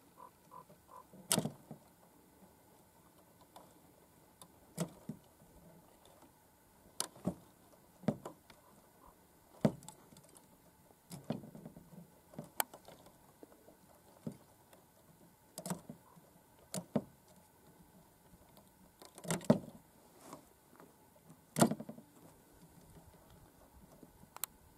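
Handling noise from a 12-gauge shotgun at a wooden barricade: a dozen or so sharp clicks and knocks of metal and wood at irregular intervals, a second or a few seconds apart.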